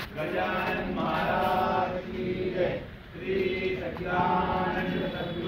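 Devotees chanting a Hindu aarti hymn together, sung in phrases with short breaks between them.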